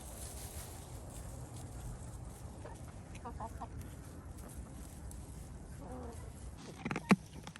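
A few short clucking calls of a chicken, one falling call a little later, over a steady low rumble; a couple of sharp knocks near the end.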